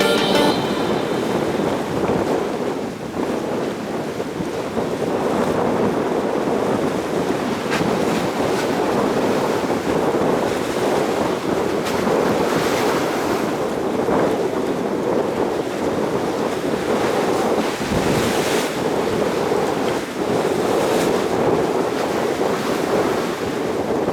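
Strong wind blowing on the microphone over the rush of choppy sea water around a ship under way in rough weather.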